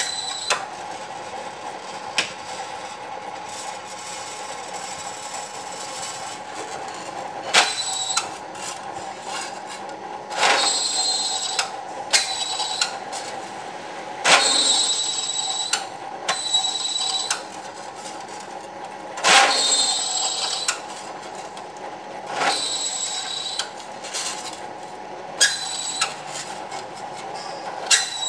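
Small bench drill press running with a steady motor hum while its bit is fed repeatedly into a thin metal disc, each cut a harsh, high-pitched whine lasting a second or two, recurring every few seconds as hole after hole is drilled.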